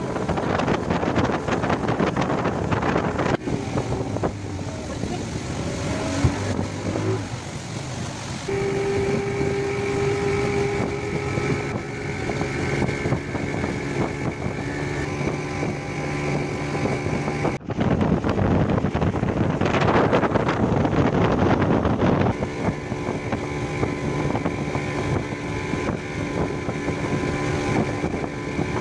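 A speedboat's engine runs steadily at cruising speed under a constant rush of wind and water noise. Its note changes abruptly a few times.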